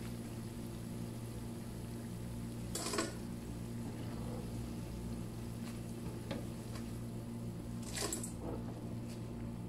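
Pakoras deep-frying in hot oil, a faint steady sizzle over a low hum, with short clinks of a metal utensil against the frying pan, the loudest about three seconds in and again near the end.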